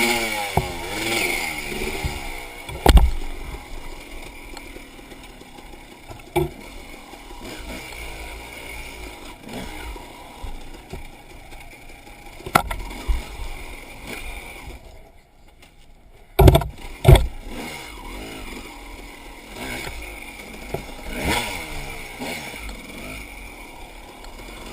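Dirt bike engine revving up and down as it is ridden over rough ground, with several sharp knocks and clatter. The engine drops almost to nothing about fifteen seconds in, then picks up again after two loud knocks.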